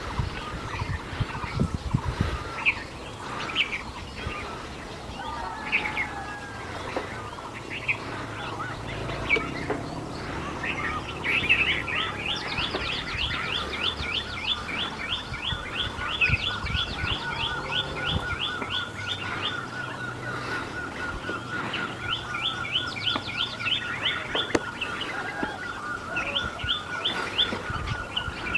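Several songbirds chirping and calling. From about a third of the way in, one keeps up a long run of quick, evenly repeated chirps over a steady high trill. A few low thumps sound near the start.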